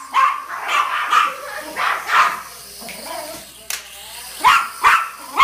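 Small dog barking in a string of short, sharp barks, then a quieter pause, and a quick run of barks again near the end.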